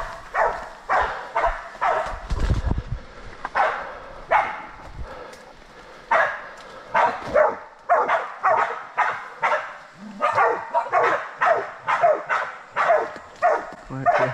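Small bailing dogs barking repeatedly while baying a wild boar. The barks are spaced out at first, then come quickly, about two to three a second, from about halfway through.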